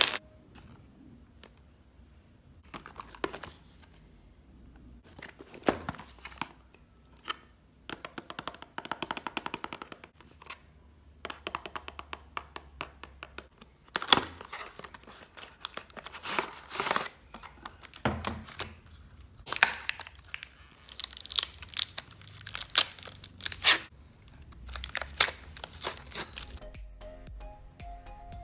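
Crisp crackling and crunching in irregular bursts with short pauses between them, from hands crushing floral foam and pressing slime. Music comes in near the end.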